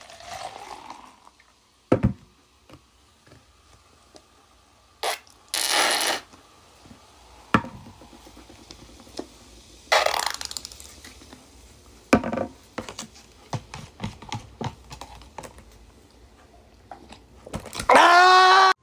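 Soft drink pours into a plastic cup, followed by scattered clicks and knocks of bottles being handled. Short hissing sputters come from a squeezed Heinz mustard bottle. Near the end a man gives one long, loud scream.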